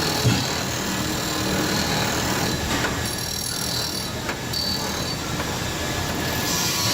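Foundry wheel grinder grinding metal castings: a steady harsh grinding noise with high-pitched metallic squeals and a few sharp knocks.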